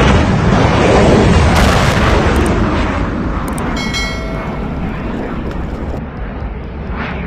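Rockets launching in a salvo: a loud, continuous rushing roar that slowly fades as the rockets climb away.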